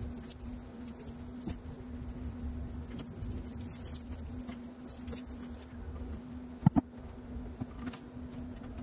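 Small clicks and rustles of wires and a hand crimping tool being handled during electrical wiring, with a pair of sharp clicks just before the seven-second mark, over a steady low hum.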